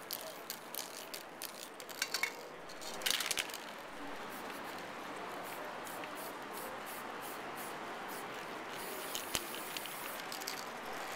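Aerosol spray-paint can spraying in short hissing bursts, the loudest about three seconds in.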